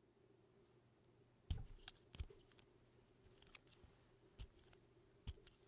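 Carving knife shaving thin slices off a bar of soap, with a few short crisp cuts and clicks, the loudest about a second and a half in and again a moment later.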